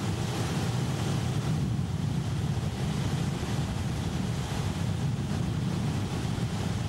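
Bass boat running at speed: a steady low engine drone under the rush of water along the hull and wind buffeting the microphone.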